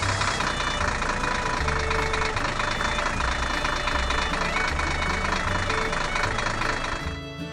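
Cartoon heavy-vehicle engine sound effect running steadily with a knocking, idling character; it cuts off briefly near the end.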